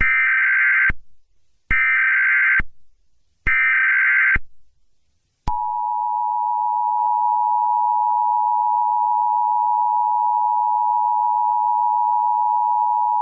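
Emergency Alert System SAME header: three short bursts of screechy digital data, each under a second long. About five and a half seconds in, the EAS two-tone attention signal begins, a steady dual tone that is held on. Together they open the Emergency Action Termination alert.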